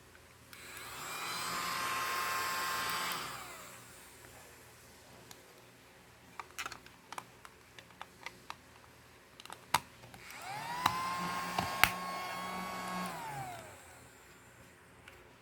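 Small battery-powered mini vacuum cleaner motor switched on twice. Each time it whines up to speed, runs steadily for about three seconds and winds down. Between the two runs come a scatter of light clicks.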